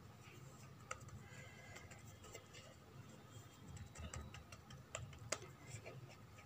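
Faint, scattered ticks and taps of fingers pressing and folding a sheet of dough on a wooden board.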